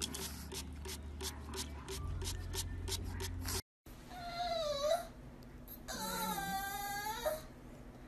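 A pug puppy lapping at the nozzle of a pet water bottle makes a quick run of wet clicks. After a cut, a pug whines in high, wavering cries: a short one about four and a half seconds in and a longer one about six seconds in.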